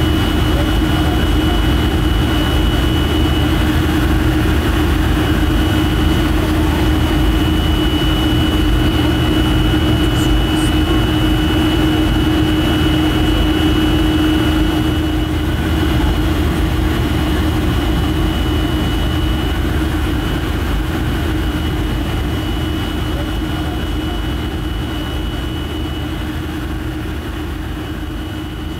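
Jet airliner cabin noise in cruise: a steady rumble of engines and airflow, with a low hum and a thin high whine. It fades slowly over the second half.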